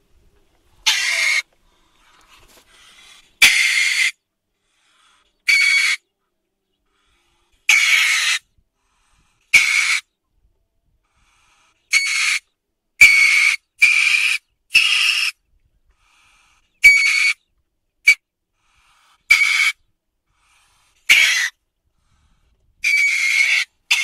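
Weasel calling: about fifteen short, high-pitched calls, each under a second, separated by silences of one to two seconds. Around the middle, several follow one another in a quick run.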